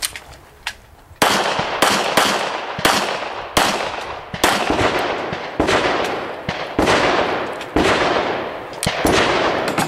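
A handgun fired in a steady string of more than a dozen shots, beginning about a second in. The shots come roughly one every half second to second, and each leaves a long echo fading across the range.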